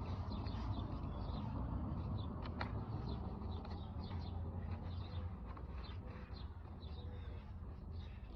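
Small birds chirping repeatedly over a steady low rumble, with a single sharp tick about two and a half seconds in.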